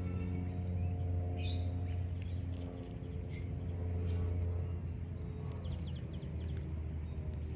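Birds chirping in short, scattered calls over a steady low hum that is the loudest sound.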